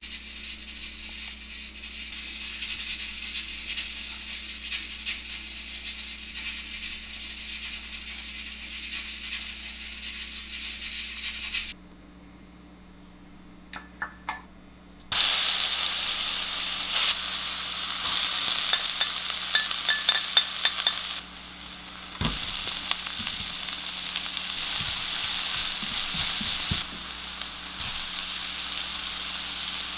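Food sizzling in a hot frying pan, in several edited cuts: a steady sizzle, a quieter stretch with a few clicks, then a louder sizzle.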